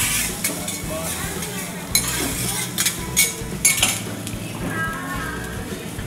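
Fried rice sizzling on a teppanyaki steel griddle while the chef's metal spatulas scrape and clatter against the plate in several short bursts, over a steady low hum.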